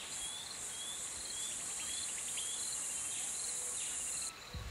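Steady high-pitched drone of insects, with a short chirp repeating about twice a second over it; the drone cuts off suddenly near the end.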